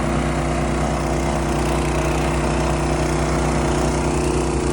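An engine running steadily at a constant speed, with a fixed hum and a broad rushing noise over it.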